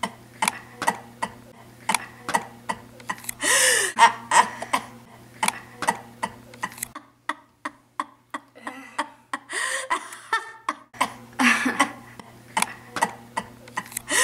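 Short bursts of women's laughter and throat noises, over a steady run of sharp clicks, two or three a second.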